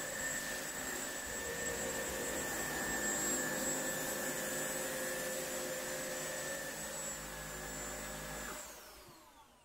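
BISSELL HydroWave upright carpet washer's motor running steadily with a high whine, then winding down near the end.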